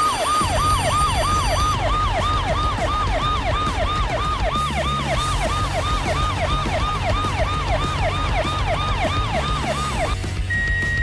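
Emergency-vehicle siren sound effect sounding in quick, repeated falling sweeps, about three a second, over a low rumble; the siren stops about ten seconds in.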